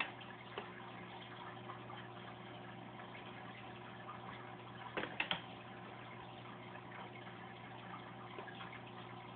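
Aquarium filter running: water trickling and splashing steadily over a low electric hum, with a short cluster of sharp clicks about five seconds in.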